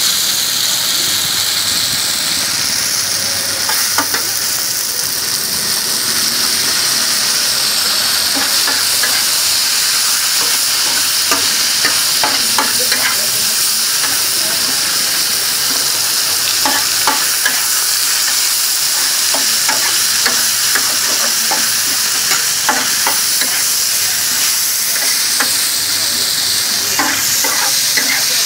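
Food frying in hot oil: a loud, steady sizzle, with scattered pops and clicks.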